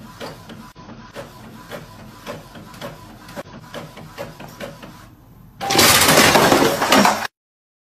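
Epson inkjet printer printing, its mechanism ticking about three times a second over a faint steady whine. Near the end a much louder crashing noise lasts over a second, then everything cuts off suddenly.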